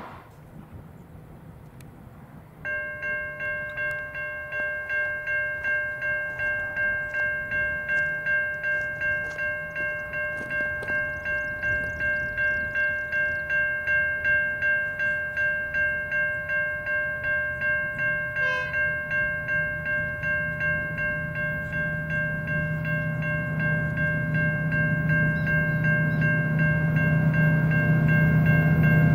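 Safetran Type 3 E-bell of a railway level crossing starts ringing about two and a half seconds in, an even repeating ding a little under two strokes a second: the crossing has activated to warn of an approaching train. From about halfway a low rumble builds and grows louder as the train nears.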